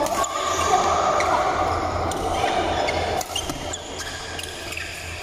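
Badminton rally: several sharp hits of rackets on the shuttlecock and players' footwork on the court, over a steady low hum.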